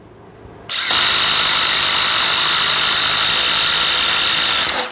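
Ridgid brushless cordless impact driver on speed 3 boring a spade bit into a wooden board, running at a steady pitch under load. It starts about a second in and stops abruptly near the end.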